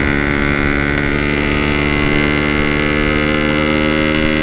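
Yamaha RX-King 135 cc single-cylinder two-stroke motorcycle engine held at a steady high rev, its pitch level throughout, under the noise of riding at speed.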